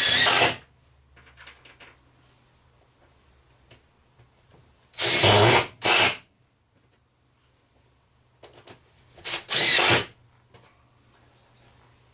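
Power drill driving screws into wood in short bursts: one at the start, two close together about five seconds in, and one more about nine seconds in. The screws are fastening a 2x2 brace under the edge of an OSB countertop.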